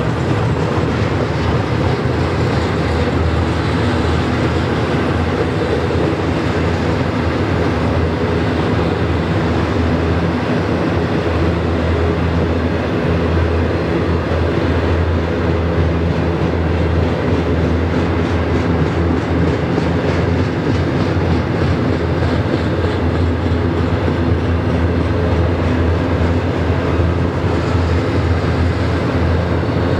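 Double-stack intermodal container cars rolling past at steady speed: a loud, continuous rumble of steel wheels on the rails.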